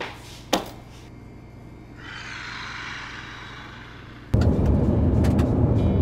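A sharp clack of car keys on a table about half a second in, then a soft hiss. A little over four seconds in, the steady low rumble of a car driving on a highway, heard inside the cabin, cuts in.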